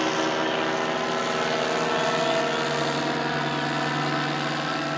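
Paramotor engine and propeller running at a steady pitch, a continuous even drone.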